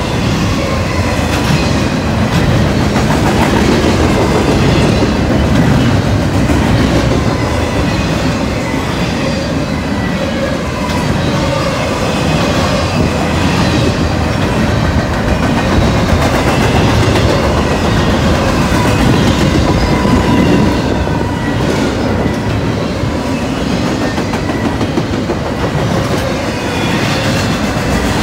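Double-stack intermodal freight train passing close by: a steady rumble and clatter of steel wheels on the rails as the loaded container cars roll past, with thin wheel squeals coming and going.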